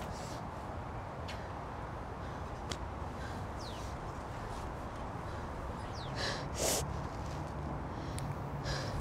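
Steady low outdoor street ambience with a couple of faint high chirps, and a woman's short, sharp sniff about six and a half seconds in.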